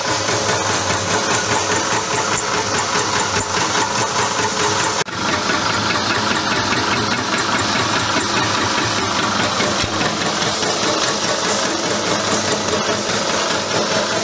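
Belt-driven electric peanut-chopping machine running steadily while chopping peanuts: a dense, even mechanical noise, with a brief dip about five seconds in.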